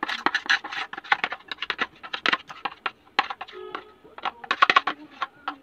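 Rapid, irregular clicks and knocks as a plastic container is tapped and shaken to empty frozen chopped herbs out of it.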